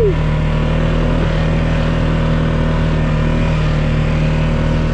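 Motor vehicle engine running steadily at an even pitch while driving.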